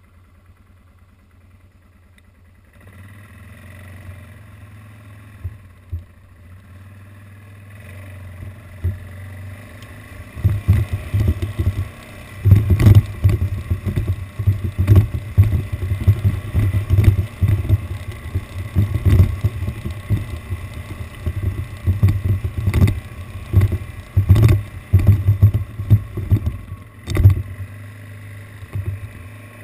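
ATV engine idling with a steady low hum, then the quad moving off across a rough grass field; from about ten seconds in, the ride is loud with irregular jolts and rattling as it bumps over the ground.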